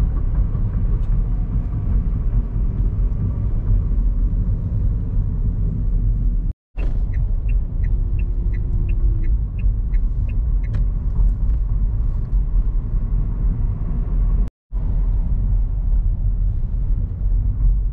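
Steady low road and engine rumble heard from inside a moving car. A run of light ticks about twice a second comes in for a few seconds midway, and the sound cuts out briefly twice.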